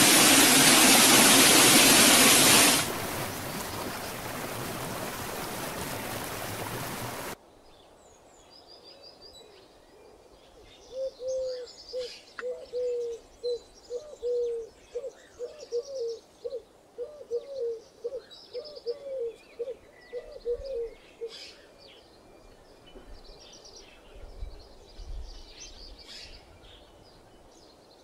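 Loud steady rush of a waterfall, dropping to a quieter rush about three seconds in that cuts off suddenly about seven seconds in. Then forest birdsong takes over: small birds chirping, and from about eleven seconds to twenty-one seconds a bird repeating one low note in a long series, about two a second.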